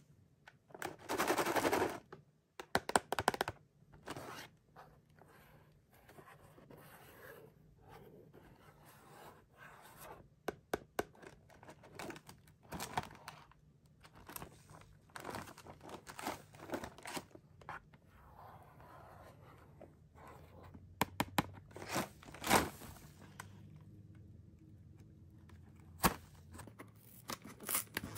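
Close-up handling of a cardboard candy box over a pile of plastic-wrapped snacks: a burst of crinkling wrappers about a second in, then scattered sharp clicks, taps and scrapes as the box is picked up and turned over in the hands.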